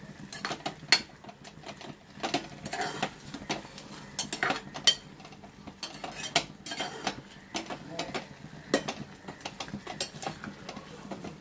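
A metal ladle stirring rose apple pieces in jaggery syrup inside an open pressure cooker pan, scraping and knocking against the metal in a string of irregular clinks.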